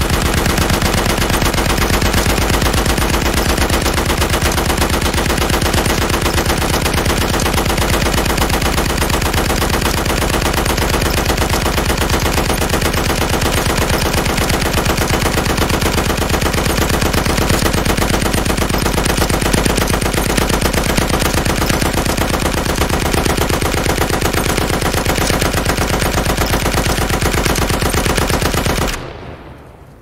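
Heavy machine gun firing one long, unbroken stream of rapid shots. The firing stops about a second before the end, leaving a tail that fades away.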